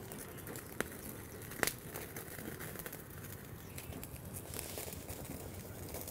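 Dried banana leaves burning under a wire grill, crackling steadily with fine pops, and two sharper snaps about a second apart near the start.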